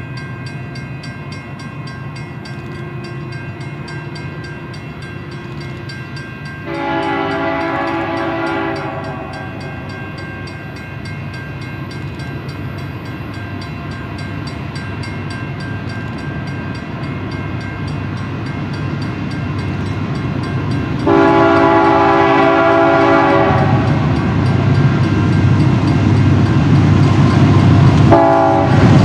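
Union Pacific freight train's diesel locomotives approaching, the rumble of the engines growing steadily louder as the lead units draw near. The locomotive's multi-tone air horn sounds two long blasts, about a third of the way in and again two-thirds in, then a short blast near the end.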